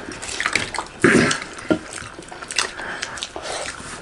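Close-miked eating sounds: chewing and wet mouth smacks with many small clicks, and one louder burst about a second in.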